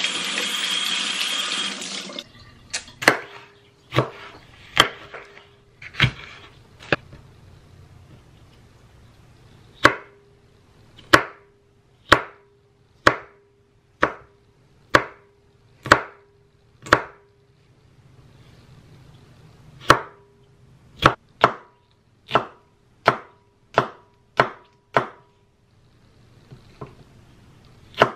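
Tap water running over hands rinsing a red pepper for about two seconds, then a chef's knife chopping the pepper on a wooden cutting board: sharp single chops about one a second, with two short pauses.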